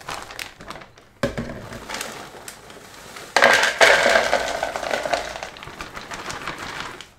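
Thick plastic vacuum-storage bags crinkling and rustling as they are handled, loudest in a burst about three and a half seconds in.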